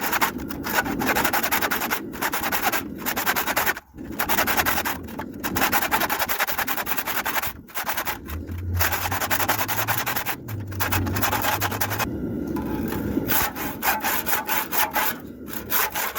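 Wood handsaw cutting through hot steel, fast rasping back-and-forth strokes with a few short pauses.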